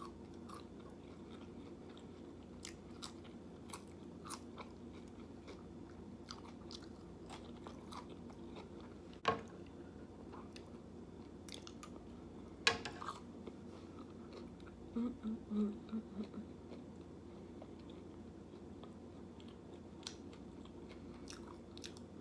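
Close-miked chewing and biting of soft food, leftover potatoes with crunchy bacon bits, with many small mouth clicks. Two sharper clicks come about 9 and 13 seconds in, and a short low hum about 15 seconds in.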